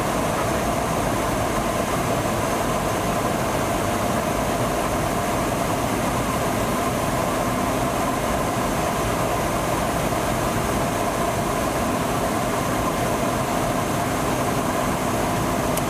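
Steady in-flight drone of a KC-135 Stratotanker heard from inside the aircraft: engine and airflow noise with a constant hum that does not change.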